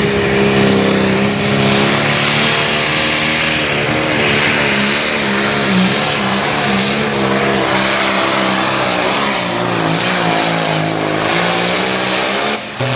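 Limited Pro Stock pulling tractor's 640-cubic-inch diesel engine running at full throttle under load while pulling the sled, its pitch wavering as the load changes. Near the end it suddenly drops off as the run ends.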